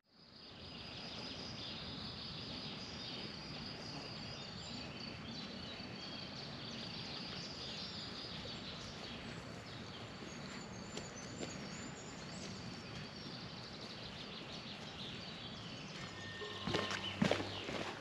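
Outdoor countryside ambience: birds chirping over a steady high-pitched hum, with footsteps starting near the end.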